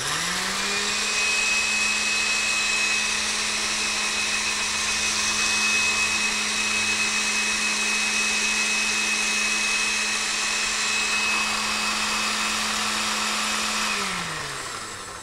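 Electric blender starting up and running steadily at high speed, with a steady high whine, while it purées tofu, herbs and a little water into a creamy sauce. Near the end it is switched off and winds down, its pitch falling.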